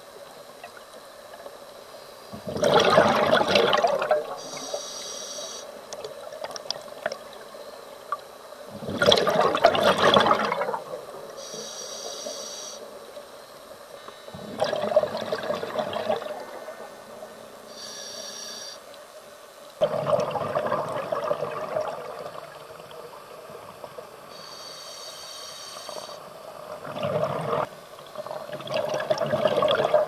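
Scuba diver breathing through a regulator underwater. There are five loud rushes of exhaled bubbles, about every six seconds, and between them a shorter, higher hiss of each inhalation through the regulator.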